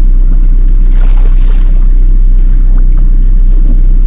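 Fishing boat's engine running steadily at trolling speed with a low rumble, and a brief rush of noise about a second in.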